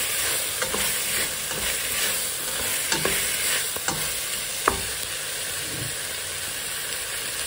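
Chopped onion, curry leaves and fennel and mustard seeds sizzling in hot oil in a stainless steel pot as they are stirred with a spoon, while the spices are tempered. A steady hiss runs under a few sharp ticks and scrapes, the sharpest a little past halfway.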